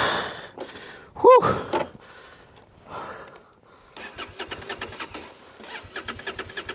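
Honda Transalp's V-twin engine turning over in rapid, uneven pulses during an attempt to get the bike out of a bog hole.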